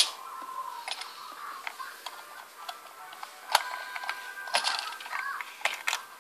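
Small metal screwdriver tapping and scraping against the plastic underside of a toy car as a child works at its screws: scattered light ticks and clicks, a few sharper ones.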